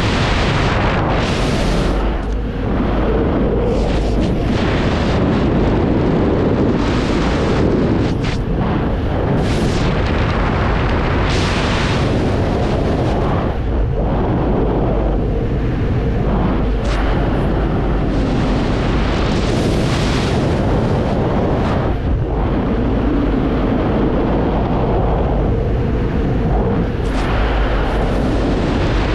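Heavy wind noise buffeting a camera microphone during wingsuit flight: a continuous loud rush with a deep rumble, swelling and dipping unevenly every second or two.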